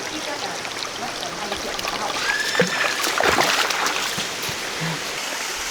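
Forest stream water running steadily, with a few small splashes.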